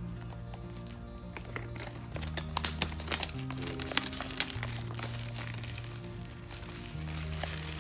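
Clear plastic wrapping crinkling and crackling in irregular bursts as it is peeled off a small cardboard box, over background music.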